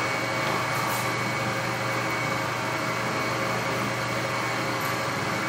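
Steady room tone in a pause between spoken lines: an even hiss with a low hum and a faint, high, steady whine, with no other events.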